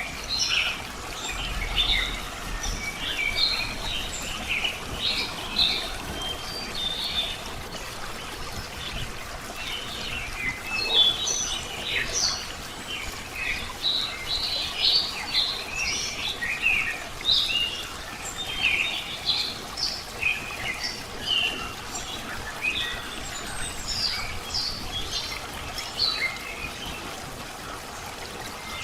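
Several small birds chirping and twittering in quick, overlapping calls, over a steady trickle of running water.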